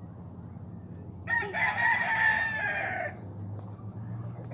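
A rooster crowing once, a single long cock-a-doodle-doo starting about a second in and lasting nearly two seconds.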